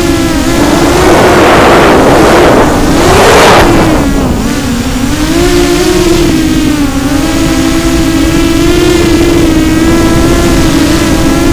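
Racing quadcopter's electric motors and propellers whining steadily, the pitch wavering up and down with the throttle. Rushes of wind noise swell through the first few seconds.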